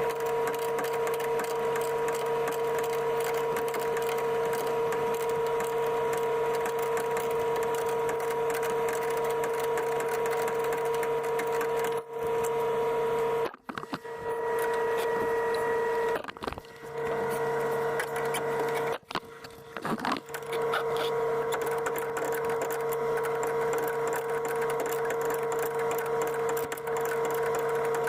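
Power tool motor running at a steady pitch with a constant crackling, scraping noise from the work. It stops and restarts briefly a few times around the middle.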